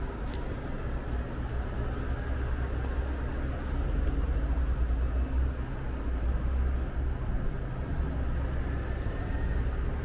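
Steady city road traffic: a continuous low hum of passing cars and buses, swelling a little midway.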